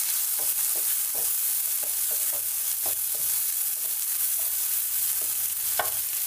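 Chopped onion, tomato and green chilli sizzling in oil in a non-stick frying pan, with a steady hiss. A wooden spatula stirs them, making short, irregular scrapes against the pan.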